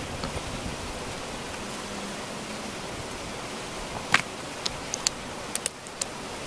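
Stones knocking together as flat rocks are set onto a dry-stone wall: one sharp clack about two thirds of the way in, then several lighter clicks, over a steady hiss.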